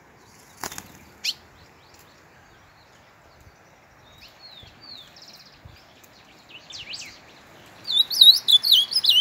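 Small songbirds calling in scrub: a few short, high single chirps, then near the end a loud, rapid run of high whistled notes. A sharp click comes just under a second in.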